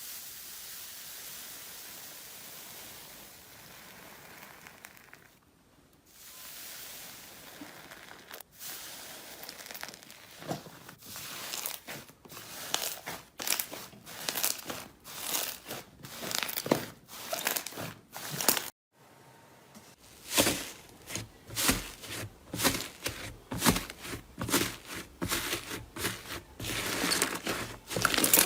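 Slime being squeezed and pressed by hand, starting with a steady soft hiss and then crackling and popping about twice a second. After a short break near the end, the crackling starts again.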